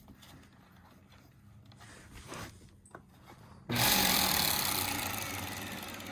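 Hoover Elite Rewind upright vacuum cleaner switched on about two-thirds of the way in, its motor starting abruptly and running loud with a whine of several steady tones. Before that there are only faint handling noises while the machine is off.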